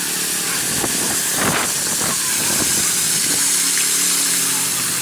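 Walk-behind concrete power trowel's engine running steadily while its rotating blades work a wet slab, with a strong steady hiss over the engine hum. A brief rush of noise comes about a second and a half in, and the engine note shifts slightly a little after three seconds.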